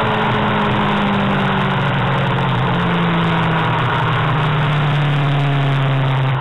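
Racing sidecar outfit's engine heard onboard, running steadily at part throttle with its pitch slowly falling, under heavy wind rush: the outfit easing off after the race is red-flagged.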